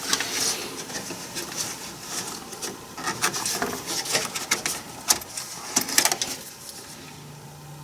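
Scattered clicks, taps and rustling of computer parts being handled, with a faint steady hum near the end.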